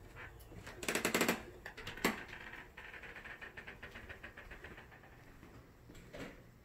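Footsteps and phone-handling noise as someone walks across a hardwood floor filming: a burst of rustling clicks about a second in, a sharp knock near two seconds, then faint rapid ticking.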